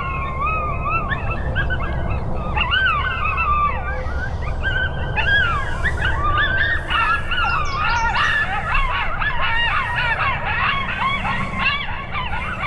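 A chorus of coyotes howling and yipping, many voices overlapping in rising and falling calls that grow busier and denser, over a low rumble of wind on the microphone.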